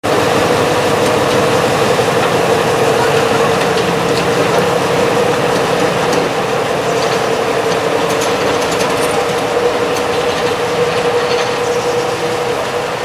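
Diesel shunting locomotive engine running, a steady mechanical clatter with an even whine held at one pitch, easing slightly about halfway through.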